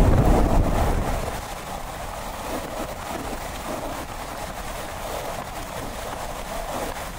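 Wind blowing across the microphone, a steady rushing noise with a heavier low buffeting gust in the first second or so that then eases.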